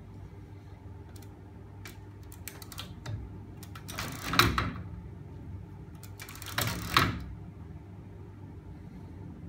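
Homemade magnet engine rig, a chain-and-sprocket drive with a crank of stacked neodymium magnets and a cast-iron weight-plate flywheel, spinning up in two short clattering bursts about four and seven seconds in. A few light clicks come before them, over a steady low hum.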